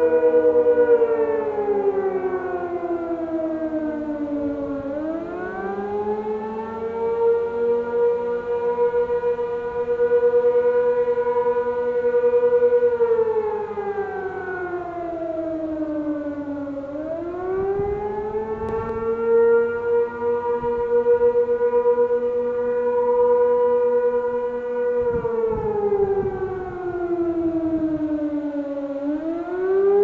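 Outdoor warning sirens sounding the wavering attack signal of a weekly test: the tone holds high, slides down over about four seconds, then climbs quickly back and holds again, three times over, with a fainter second siren lower in pitch.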